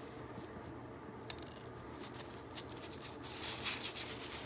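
Gloved hands squeezing and crushing pink slime, a faint crackly rubbing with a sharp click about a second in and a few crackles near the end.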